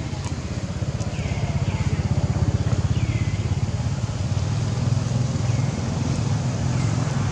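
A motorcycle-like engine running steadily off-screen, a fast low hum that grows louder over the first two or three seconds and then holds. A few short, high, falling chirps sound over it.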